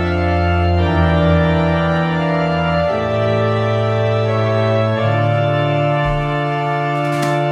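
Background music: sustained organ chords changing every couple of seconds, with a few percussive hits near the end.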